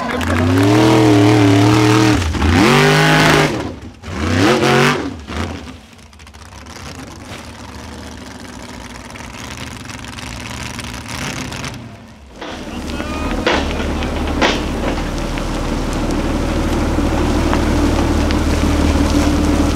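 Off-road vehicle engine revving, its pitch rising and falling for the first five seconds, then after a quieter spell a steady low engine drone from a little past the middle onward.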